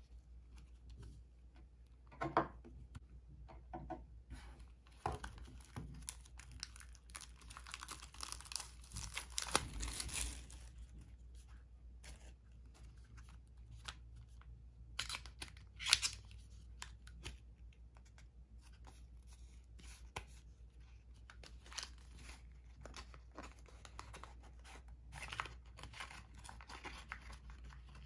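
A small cardboard box of playing cards being torn open and handled: tearing, crinkling and scraping of card and paper in scattered bursts, with a longer stretch of rustling early on and one sharp click about halfway through. Near the end the card deck slides out of its box.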